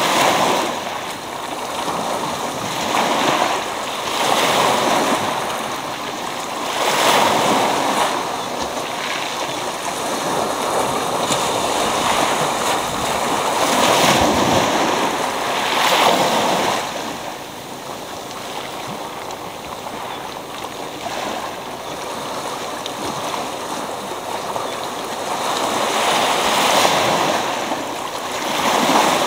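Small sea waves breaking and washing up a pebble beach, foam running over the stones. The surf swells and ebbs in surges every two to three seconds, with a quieter spell about two-thirds of the way through before it builds again near the end.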